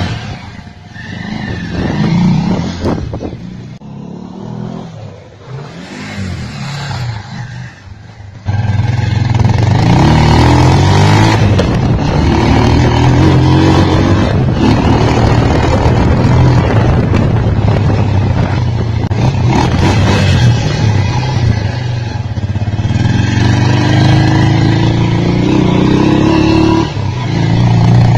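Bajaj Pulsar 150's single-cylinder engine, running with a part taken out of its air filter box to change its note. It is quieter and uneven at first, then becomes loud and steady from about eight seconds in. Near the end the pitch rises as it revs up, then drops suddenly.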